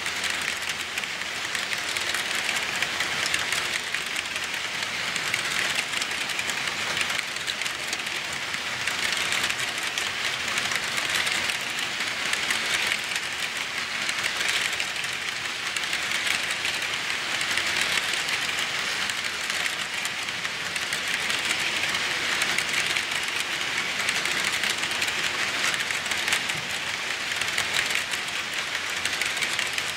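HO-scale model freight train of covered hopper cars rolling past: a steady hiss of small metal wheels on the rails, threaded with fine rapid clicking.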